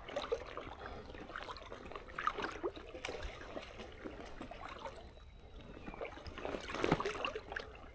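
Creek water running and trickling faintly, with scattered small splashes and crackles, a little louder near the end.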